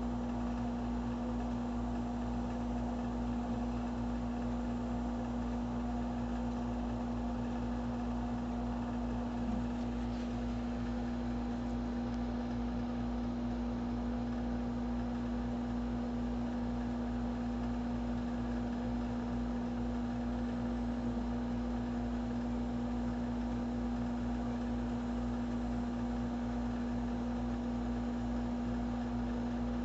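A steady mechanical hum with one strong low tone under a constant low rumble. It does not change throughout.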